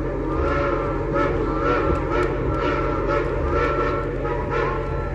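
Shay geared steam locomotive working, its exhaust chuffing about twice a second, with a high steady tone that comes and goes over the beat.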